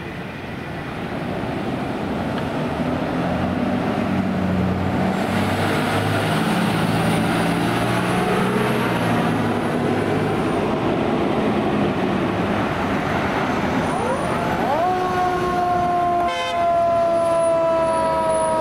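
Fire apparatus diesel engines and road noise rumble as the emergency vehicles pull out. About 14 seconds in, a fire engine's siren starts: a quick rise in pitch, then a slow wail down.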